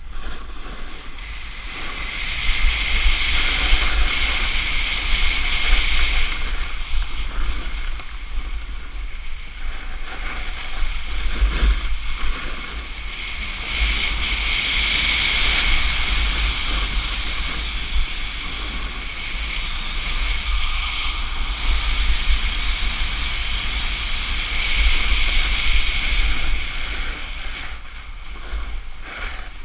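Snowboard sliding and carving on hard-packed groomed snow, a continuous scraping hiss that swells and eases several times as the board turns. Low wind rumble on the action camera's microphone runs underneath.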